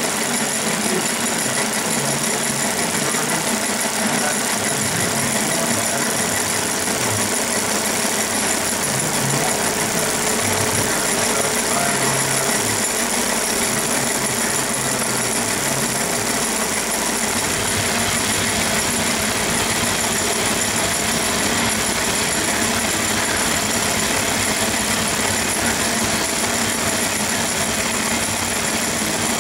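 Bosch MRD6A102 six-cylinder magneto being spun on a magneto test stand, with the drive running steadily and the magneto firing sparks across the stand's gap points in a rapid, continuous machine chatter. The low part of the running sound shifts about two-thirds of the way through.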